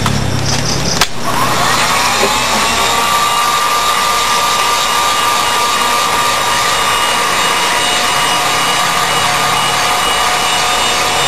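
Handheld heat gun switched on with a click about a second in; its fan motor spins up with a rising whine and then runs steadily, blowing hot air.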